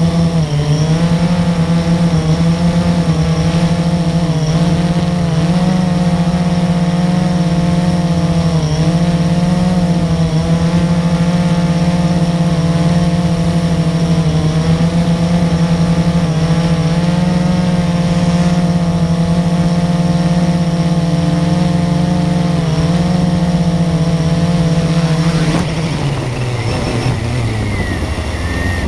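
Blade 350QX quadcopter's four brushless motors and propellers humming steadily, heard from on board, the pitch wavering slightly as the motors adjust to hold a hover. About 26 seconds in the quadcopter sets down and the motors spin down, the hum dropping and its pitch falling steadily.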